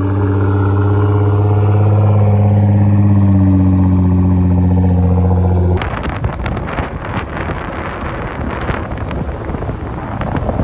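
Parked Nissan GT-R and Audi RS6 idling, a steady engine hum that drifts slightly up and down in pitch. About six seconds in it cuts to a rushing, buffeting wind noise with clatter, from a car driving on the road.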